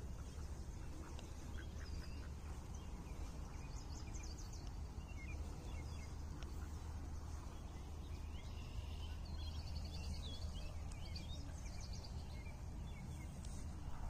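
Mallard ducks, a drake and a hen, quacking over a steady low rumble, with small birds chirping in high trills in the background.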